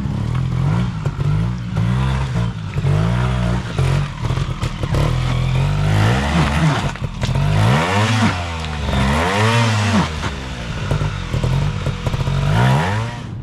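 Trials motorcycle engine being blipped again and again, its revs rising and falling in quick bursts as the bike picks its way through an observed section, with a few sharp knocks.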